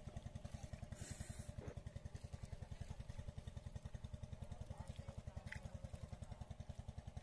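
A small engine running steadily at an even speed, its low beat rapid and regular, about ten a second.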